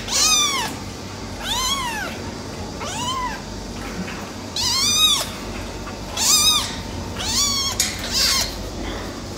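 Silver tabby kitten mewing repeatedly: about seven high-pitched calls, each rising and then falling in pitch.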